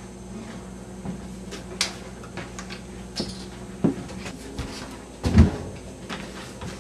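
Scattered knocks and clicks of handling and moving about a room, with a louder thump about five and a half seconds in, over a faint low steady hum.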